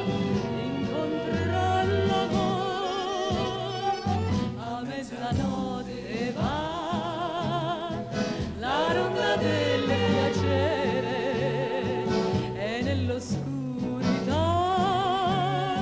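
A small dance band with violin, accordion and saxophone plays a song over a bass line stepping on a steady beat, while a woman sings held notes with wide vibrato.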